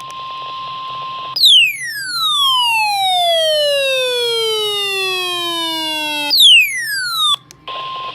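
NOAA Weather Radio's steady 1050 Hz warning alarm tone, broken off about a second and a half in by a loud whistle that glides steadily down in pitch over about five seconds, then a second, shorter falling whistle; the steady alarm tone comes back near the end.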